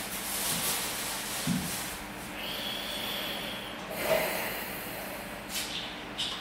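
A man breathing through his nose close to the microphone, with a long hissing exhale about halfway through.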